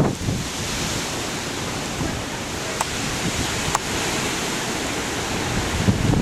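Storm surf and strong wind from a hurricane: a steady rushing noise, with wind buffeting the microphone and two faint clicks near the middle.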